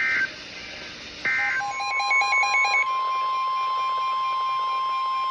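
Emergency Alert System end-of-message data bursts, short harsh buzzes about a second apart, followed about a second in by the weather radio alert tone: a long steady beep, with a stretch of rapid warbling beeps over its first second or so. Together they mark the end of one severe thunderstorm warning and the alert for the next.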